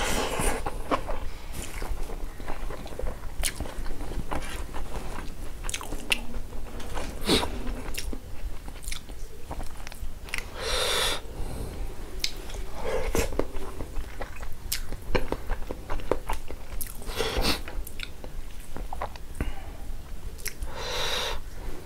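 Close-up chewing and biting of pork and rice, with many wet mouth clicks and a louder mouthful every few seconds.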